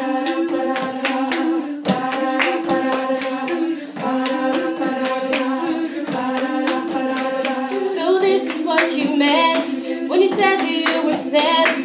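Women's a cappella group singing sustained chords in close harmony over a steady beat of sharp percussive clicks. A higher, moving vocal line joins about eight seconds in.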